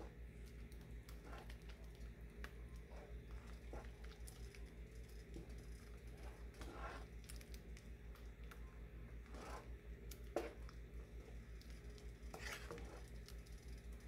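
Wooden spoon stirring thick sambar in a nonstick pot: soft, irregular squelching and scraping strokes over a low steady hum, with one sharper knock about ten seconds in.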